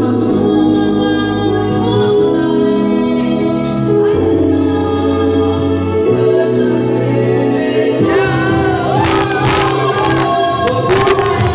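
A group of voices singing together into a karaoke microphone over loud backing music. A few sharp hits cut through near the end.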